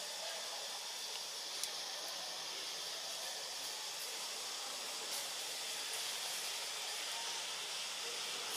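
Steady, even background hiss of forest ambience, with a faint click or two.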